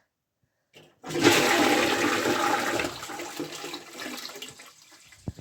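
Newly fitted toilet flushing: a loud rush of water starts about a second in, then fades away over the next few seconds.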